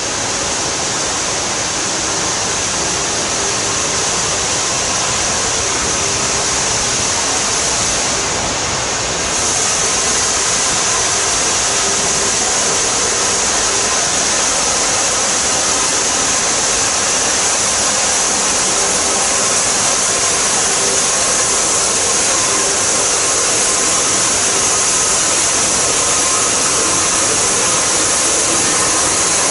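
Steady loud hiss of steam from Merchant Navy class steam locomotive 35028 'Clan Line', with no exhaust beats; it grows a little louder about nine seconds in.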